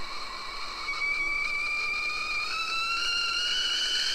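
Stovetop whistling kettle whistling at the boil, several pitches together slowly rising, with a hiss of steam.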